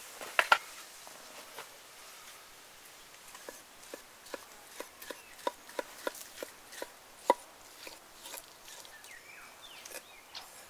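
Large knife slicing sheep offal on a wooden cutting board: a run of short, sharp taps of the blade striking the board, nearly three a second, with a louder strike near the middle. A couple of sharp knocks come about half a second in.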